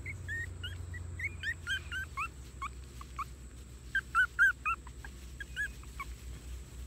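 Three-week-old puppies whimpering in a quick run of short, high-pitched squeaks, thickest and loudest about four seconds in.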